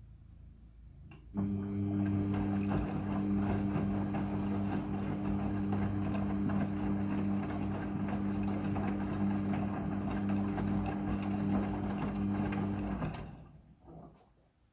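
Midea front-loading washing machine running in its rinse cycle: a steady, even-pitched hum over a rushing water noise, starting abruptly about a second in and fading out near the end.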